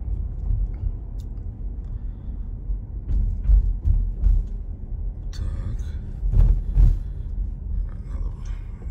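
Low rumble of a car rolling slowly, heard from inside the cabin, with a few dull thumps; the loudest two come close together about six and a half seconds in.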